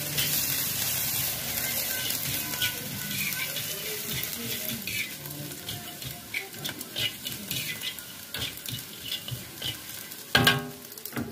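Strips of buff meat sizzling in oil in a wok while a metal spatula scrapes and taps the pan as they are stirred. The sizzle is strongest at the start and eases off, and a loud knock comes near the end.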